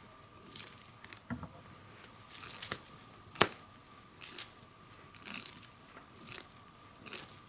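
Swedish torch (an upright split log) burning, its wood crackling with scattered sharp pops, one louder pop about halfway through.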